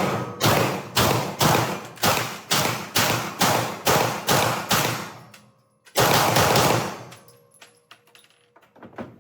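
Practical-shooting handgun fired rapidly, about ten shots roughly half a second apart, then after a short pause one more shot about six seconds in.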